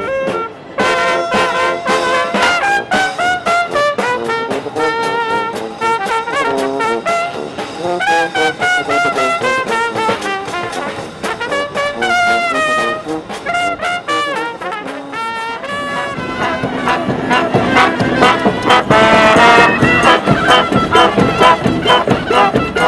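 Brass street band playing, with trumpets and trombones carrying the melody over drums. About sixteen seconds in the music gets louder and fuller.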